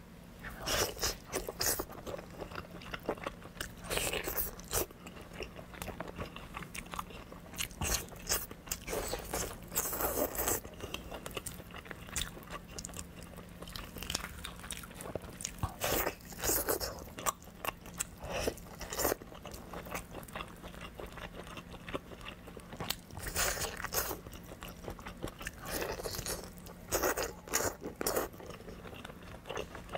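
Close-miked eating sounds: biting into and chewing large braised chicken drumsticks, in irregular short bursts.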